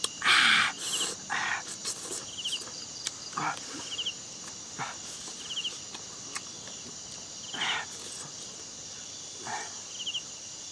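Night insects: a steady high-pitched cricket chorus, with a short trilled chirp repeating about every two seconds. Over it come short wet mouth and hand noises of eating: smacking and chewing, and tearing of cooked meat. The loudest comes about half a second in.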